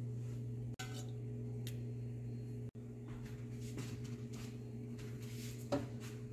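A steady low electrical hum, with a few light taps and scrapes of a serving spoon against a steel karahi. The sharpest tap comes near the end. The sound drops out briefly twice.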